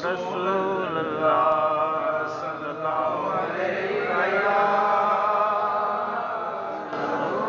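A man reciting an Urdu naat unaccompanied, singing long held notes that waver and glide in pitch, with a short breath near the end.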